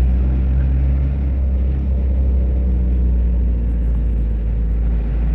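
Steady low drone of a bus's engine and road noise, heard from inside the moving bus.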